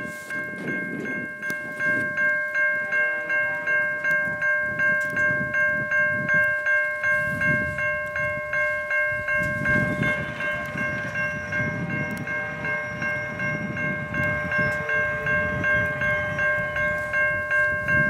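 Railway level-crossing warning bell ringing with rapid, evenly spaced strikes, a few a second, while the crossing signals are active and the gates come down.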